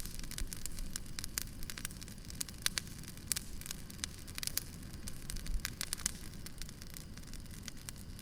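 Firewood burning, with frequent sharp, irregular crackles and pops over a low, steady rumble.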